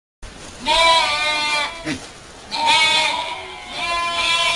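Young goats bleating: three long calls of about a second each, one after another.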